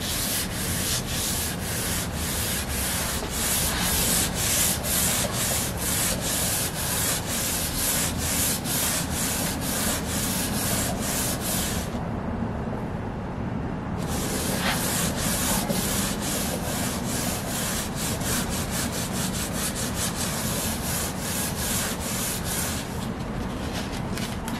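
Hand sanding with 800-grit sandpaper on a pad across a shellac-finished rosewood veneer, to level the finish. Quick back-and-forth strokes, about three a second, stop for about two seconds near the middle, then carry on.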